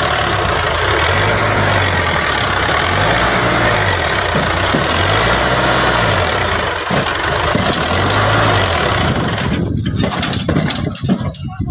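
Sonalika DI 750 tractor's diesel engine working under load, hauling a trolley loaded with sand; its pitch rises and falls about four times as the revs surge and drop. The sound thins out near the end.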